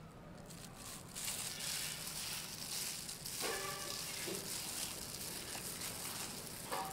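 A plastic-gloved hand mixing shredded pumpkin with rice flour and coconut cream in a steel bowl: a wet squishing and rustling that starts about a second in and carries on steadily.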